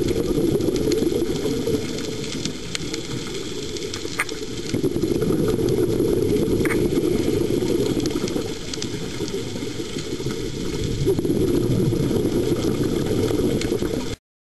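Underwater sound picked up by a scuba diver's camera: a low, rumbling bubble noise from the diver's regulator breathing, swelling and easing off every few seconds, with faint scattered crackling clicks.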